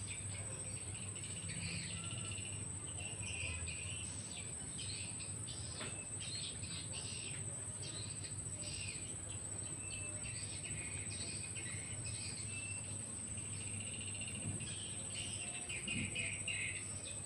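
Steady high-pitched insect drone, with frequent short bird chirps over it.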